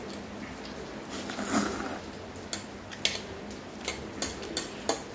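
A short wet eating noise about a second and a half in, then a metal fork clicking against a ceramic plate about six times as noodles are twirled on it.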